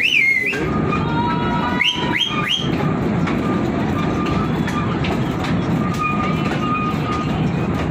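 Small park toy train running through a short tunnel: a steady rumble of the moving carriages, with a few short high-pitched rising sounds near the start and about two seconds in.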